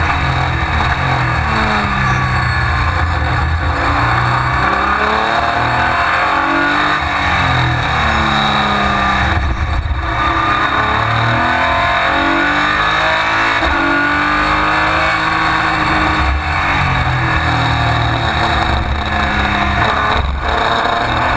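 Sports-prototype race car's engine heard from inside the cockpit at racing speed, its pitch climbing and falling repeatedly as it accelerates and brakes through corners, with a couple of very short dips.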